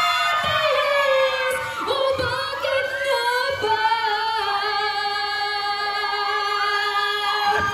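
A woman sings into a microphone, holding long high notes with a wavering vibrato and changing pitch between them. The last note is held for about four seconds before she breaks off near the end.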